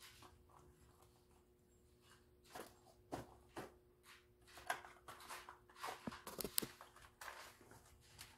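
Faint scattered clicks, knocks and rustles of small goods being handled on shop shelves, busier in the second half, over a steady faint hum.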